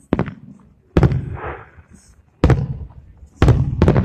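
Aerial firework shells bursting: five sharp booms over about four seconds. The last two come close together, and each dies away in a short low rumble.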